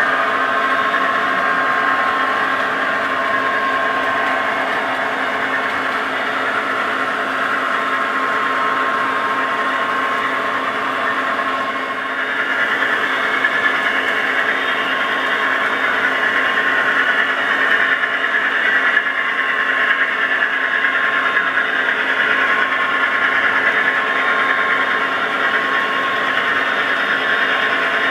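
Model diesel locomotives' DCC sound decoders playing engine sound through small onboard speakers, mixed with the whir of the model motors. It starts as a steady idle of a Class 66 with a held drone. About twelve seconds in it grows louder and busier as another locomotive's engine sound joins.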